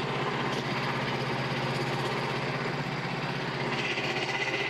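Small gasoline engine of a Frontier OS27 portable bandsaw mill running steadily.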